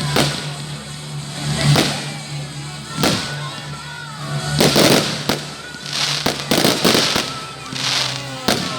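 Fireworks going off outdoors: a run of sharp bangs about a second apart, with thicker crackling bursts in the middle and near the end.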